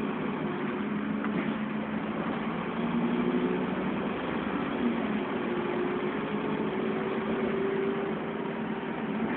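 Dennis Trident double-decker bus's diesel engine running, heard inside the upper deck, with a steady hum of cabin noise; its note climbs slowly through the second half.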